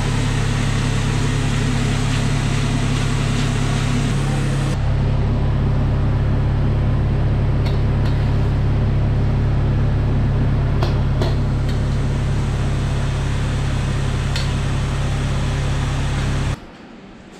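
Loud, steady machine hum with a deep drone from running kitchen equipment, with a few light clicks. It shifts slightly about five seconds in and stops abruptly near the end.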